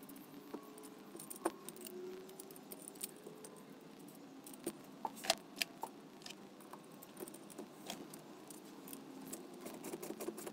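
Small steel parts of a lawn edger's cutting blade assembly (bolt, blade, flat washer, nylock nut) clinking and tapping as they are handled and fitted together. There is a cluster of sharper clicks about five seconds in, and a quick run of light clicks near the end as the nut is tightened with a spanner and ratchet.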